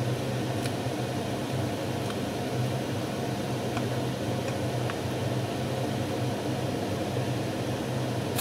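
Steady hum of a running kitchen fan motor, even throughout, with a few faint light clicks of a wooden spoon stirring in a metal pot.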